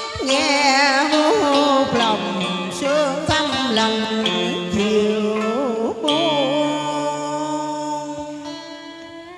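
Instrumental music of a Vietnamese tân cổ song: stringed instruments playing notes that waver and bend in pitch over held tones. The music fades down near the end.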